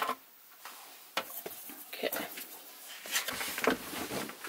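Handling noise: scattered light clicks and rustles of a plastic air-conditioner filter cover and foam filter material being moved about, starting about a second in.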